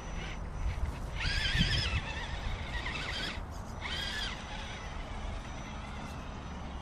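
Electric motor and drivetrain of a 1/10-scale Axial Wraith RC rock crawler whining in two short bursts, rising and falling in pitch with the throttle as it climbs a boulder.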